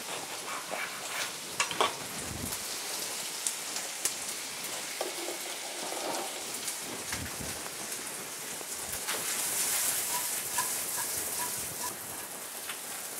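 Sliced sausage and diced onion frying in butter in a pan, a steady sizzle, with scattered clicks and knocks from kitchen handling.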